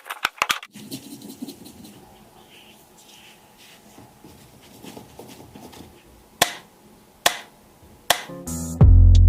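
Handling noise from unboxing the speaker: scraping and rustling of the packaging, with quick clicks at the start and three single sharp clicks later on. Music comes back in near the end.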